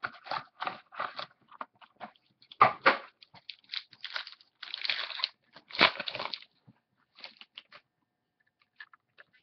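Plastic wrapping on a trading-card pack crinkling and tearing as it is opened, in a run of uneven crackly bursts, loudest about three and six seconds in. It thins to a few faint clicks near the end.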